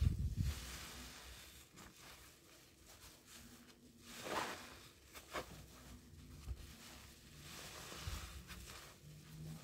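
Stacked soap-soaked sponges being squeezed into thick foam: soft wet squelches and the fizzy crackle of suds. A low thump comes right at the start, and louder squishes come about four and five seconds in.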